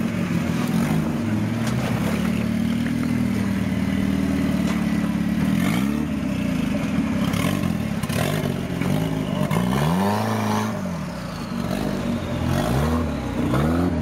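Off-road competition 4x4 buggy's engine working under load as it crawls up a steep rock slope, revved up and down in short bursts several times, the biggest about ten seconds in.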